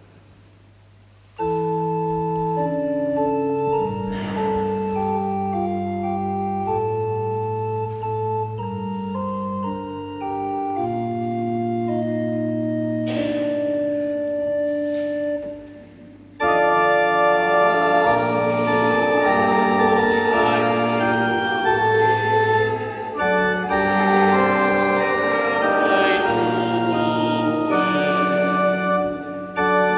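Organ playing a hymn in sustained, changing chords. It comes in about a second and a half in, breaks off briefly around halfway, then resumes fuller and louder.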